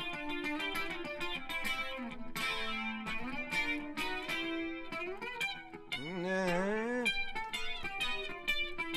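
Guitar playing a run of picked notes and chords, with one wavering sustained note that bends up and back down about six seconds in.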